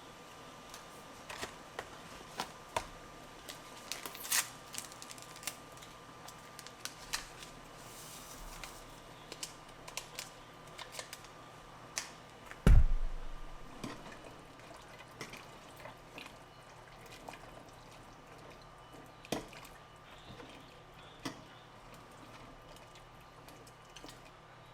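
Kitchen handling sounds at a pot of cooking chicken and noodles: scattered clicks and knocks of utensils and cookware, with soft wet liquid sounds, and one loud thump about halfway through.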